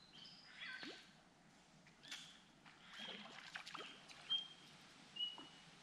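Bush birds calling: scattered chirps, short falling notes and whistles. Two short, clear whistled notes near the end are the loudest. Faint water sloshes around wading legs in a shallow river beneath them.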